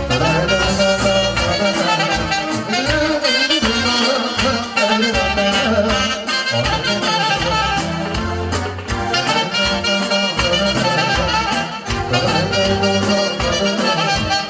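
Instrumental band music with a steady beat.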